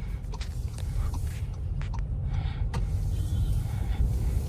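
Volkswagen Virtus GT's 1.5-litre turbo-petrol four-cylinder engine heard from inside the cabin, pulling away under throttle with a low steady drone that grows slowly louder.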